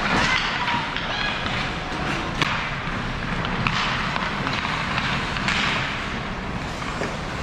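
Ice hockey play heard from rinkside: skate blades scraping and carving the ice in short swishes, with a few sharp clacks of sticks on the puck and dull thuds.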